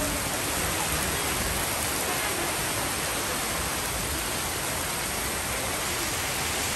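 Rain falling steadily on trees, grass and wet paving, an even, constant hiss.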